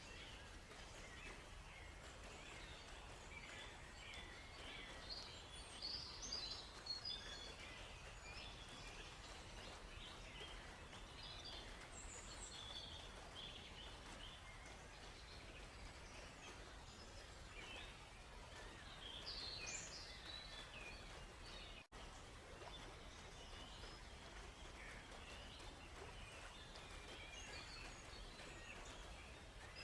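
Several songbirds chirping and trilling intermittently, faint, over a steady low background hiss of forest ambience, with a brief cut-out about two-thirds of the way through.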